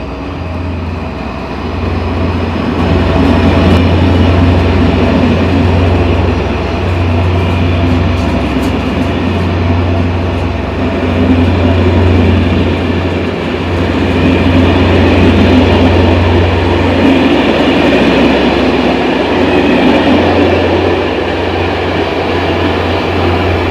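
SNCF CC 72100-series diesel locomotive's Pielstick engine running with a deep, steady drone, growing louder a couple of seconds in, with a faint high whine slowly rising in pitch.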